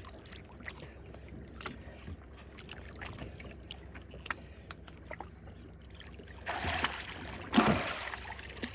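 Sounds aboard a small fishing boat: a steady low hum with scattered small clicks and knocks, then two loud rushes of noise near the end.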